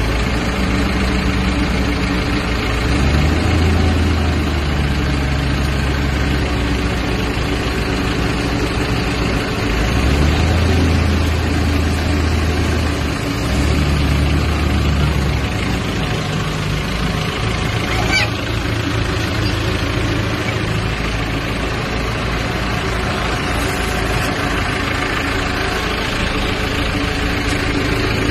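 Shacman H3000 dump truck's diesel engine running while the hydraulic tipper raises the loaded bed, its speed stepping up for a few seconds several times in the first half. Sand sliding out of the tipped bed adds a steady hiss.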